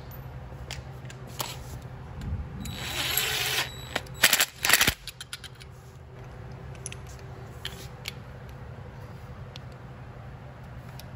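Hand tools being handled on a metal bench: a brief hiss about three seconds in, then a quick cluster of loud, sharp metallic clacks about four to five seconds in, followed by a few faint ticks. A steady low hum runs underneath.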